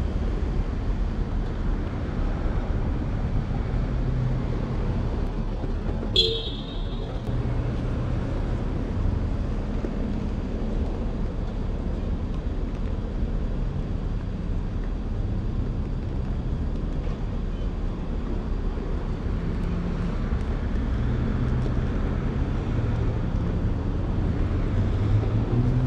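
Steady low engine rumble, with a short high beep about six seconds in.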